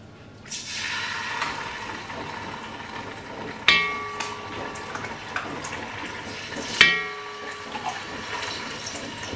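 Tomato paste sizzling as it goes into hot sunflower oil in the pot. A metal spoon clinks twice against metal, about three and a half and seven seconds in, each clink ringing on briefly.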